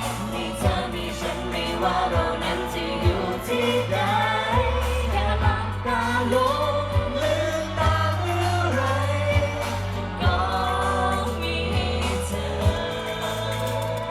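Live pop song played through a PA: singing over a band with heavy bass and drum hits.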